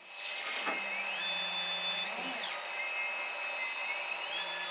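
Machine shop noise: a machine tool running steadily with a low hum, and a whine that rises in pitch twice as it speeds up.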